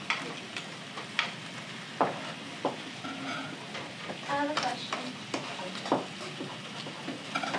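Chicken frying in a pan with a steady sizzle, broken by several sharp clicks and knocks of utensils.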